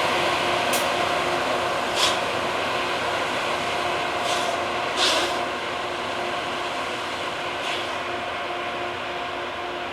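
QRN rail grinding train running as it pulls away, a steady mechanical drone with a few held tones that slowly fades. Several short, sharp hisses cut in through it.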